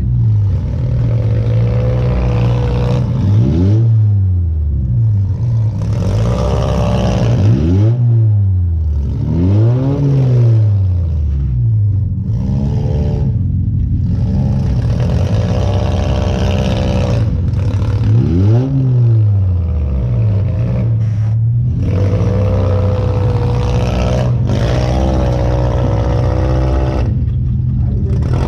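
Demolition derby car's engine running loud, revved up and back down several times over its steady running, heard from inside the car.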